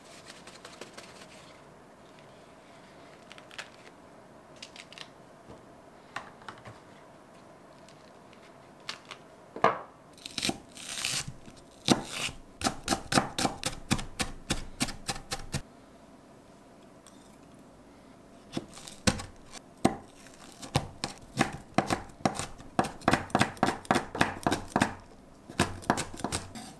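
Chef's knife chopping green onion and Cheongyang chili peppers on a wooden cutting board: sharp knocks of the blade on the wood, a few scattered at first, then two long quick runs of about five strokes a second.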